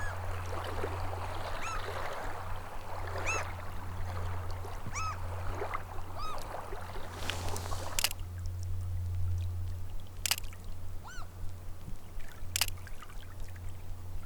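A small bird repeating a short, clear arched call, roughly once every second and a half, over the hiss of running water and a low wind rumble. The water sound drops away at a sharp click about halfway through, and two more sharp clicks follow.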